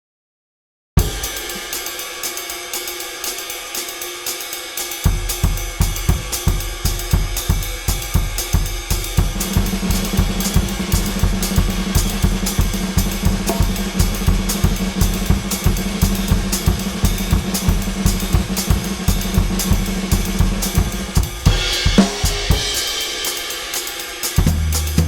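Sampled acoustic drum kit from Addictive Drums 2, triggered live from an EFNOTE 5 electronic kit, playing a steady groove. Fast even cymbal or hi-hat strokes start about a second in, the bass drum joins a few seconds later, and a cymbal crash comes near the end.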